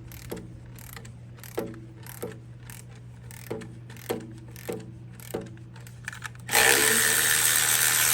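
Hand ratchet clicking as its handle is swung back and forth, backing out the oil pan bolts on a Chevy 350 engine, with a sharp click about every 0.6 s. About six and a half seconds in, a much louder steady rasping noise starts and lasts about two seconds.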